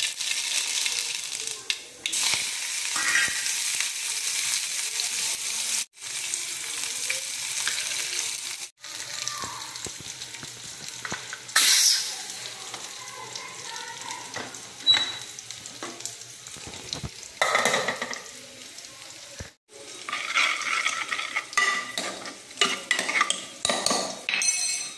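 Oil and food sizzling in a steel kadai, with a spoon stirring and clattering against the pan. The sound comes in several short clips that break off abruptly.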